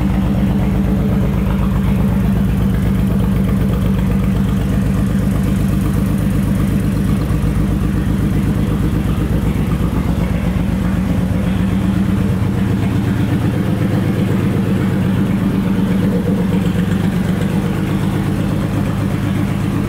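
Honda VTX1800's big liquid-cooled V-twin idling steadily, with an even low pulsing beat.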